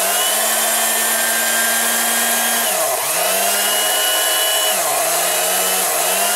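Predom Zelmer type 165A hand mixer's electric motor running with a steady whine after repair, its pitch dipping sharply and recovering three times. It runs with its original wiring by the stator restored, and the repairer says it no longer sparks inside.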